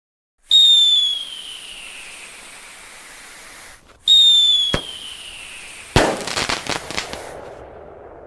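Fireworks: a whistling firework gives a long, slowly falling whistle that is cut off abruptly, then a second falling whistle with a sharp crack about half a second later. About six seconds in comes a loud bang followed by a rapid string of crackling pops that fade away.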